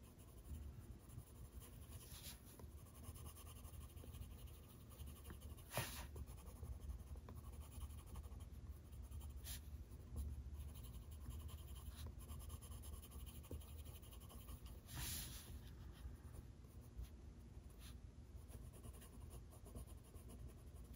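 Coloured pencil scratching faintly and steadily on paper as an area is shaded in, with a few soft taps along the way.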